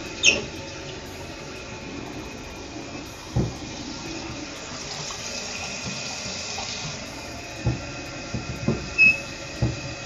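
Toilet tank refilling through a newly fitted fill valve just after the water supply is turned back on: a steady rush and hiss of water. Several short knocks and clicks, the loudest near the start and about nine seconds in.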